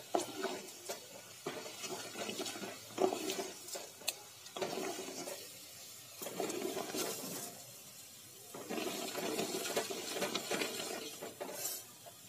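Hot oil sizzling in a steel pot as mustard seeds, cumin, urad dal and curry leaves fry, with a wooden spatula stirring and scraping against the pot in uneven spells and scattered sharp crackles.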